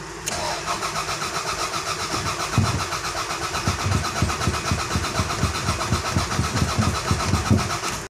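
Toyota Corona's engine being cranked by the starter motor, turning over with an even pulsing beat at about four to five a second but never catching: the engine is getting no spark. The sound cuts off abruptly at the end.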